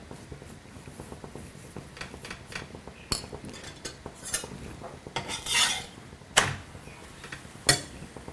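A small metal spoon scraping and tapping against a puran poli and a hot iron tawa as ghee is spread over the bread, with scattered sharp clicks and a short scraping rasp a little after five seconds in.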